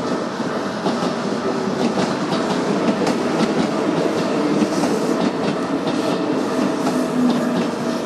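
Keikyu Daishi Line train running through a level crossing, its wheels clattering and clicking over the rails and growing a little louder. A steady warning tone from the crossing signal rings over it.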